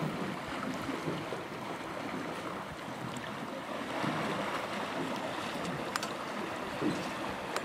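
Water sloshing and splashing around the legs of African elephants wading across a river, heard as a steady rushing.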